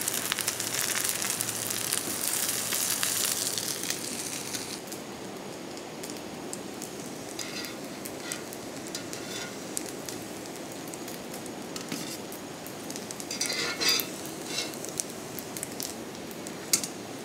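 Pathrode slices frying in coconut oil on a hot tava, sizzling loudly for the first four seconds or so and then settling to a quieter hiss. A few light metal clinks of dishes come through in the second half.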